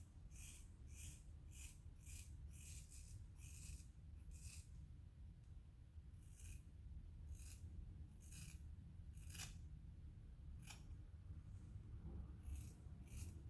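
Scissors snipping through hair in a series of short, crisp cuts. There is a quick run of snips over the first few seconds, then a few spaced-out ones, then another quick run near the end.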